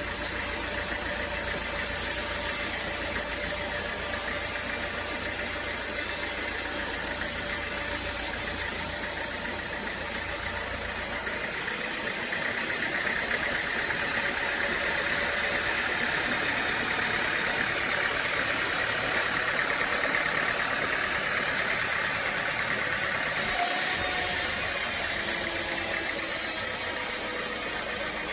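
Sawmill machinery running steadily with an engine-like drone. The sound changes about a third of the way through and again near the end, with a brief louder swell.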